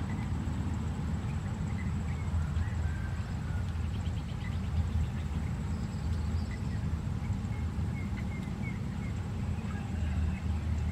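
Outdoor ambience of a low, unsteady rumble with scattered short bird chirps and a brief faint trill about four seconds in.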